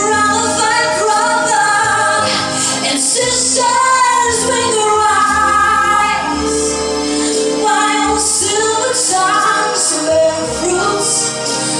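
A woman singing into a handheld microphone over instrumental backing music.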